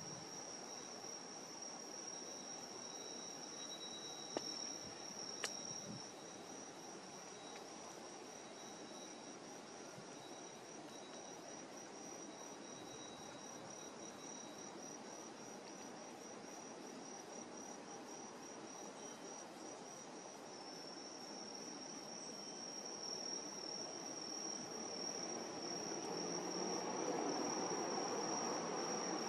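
Crickets trilling steadily at a high pitch, with a second, lower trill that fades out partway through. Two sharp clicks come about four and five seconds in, and a low rumble swells over the last few seconds.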